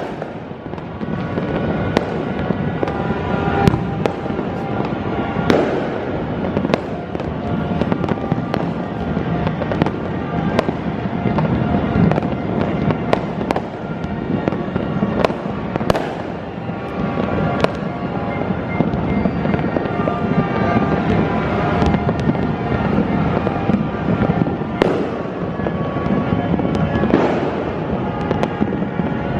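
Dense fireworks and firecrackers going off without let-up, sharp bangs every second or two over a constant crackling din, with music playing underneath.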